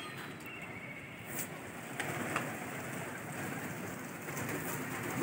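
Wings of a flock of domestic pigeons flapping as the birds come down to land. The flutter swells from about two seconds in, with a few sharp wing claps.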